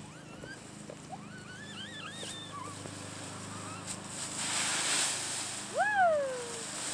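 Dry autumn leaves rustling and crunching as a toddler runs and kicks through a leaf pile, loudest about two-thirds of the way in. Over the rustling come a child's high squeals and babble, and near the end one loud high cry that falls in pitch.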